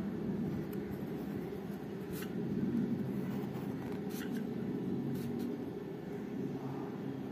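A steady low rumble with a hum runs underneath, like engine or traffic noise. Over it come a few faint scratches of a graphite pencil drawing on paper.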